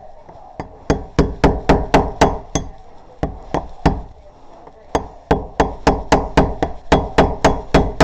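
A rapid run of sharp knocks or taps, about four a second, with a short pause about four seconds in.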